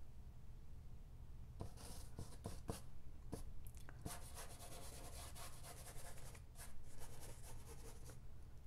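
Flat paintbrush scrubbing and dabbing oil paint onto a primed painting panel. The scratchy strokes start about a second and a half in and come quick and close together through the second half.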